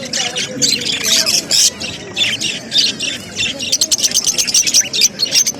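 Many caged parrots chirping and squawking over one another in a continuous chatter. The short, sharp calls crowd together faster over the last couple of seconds.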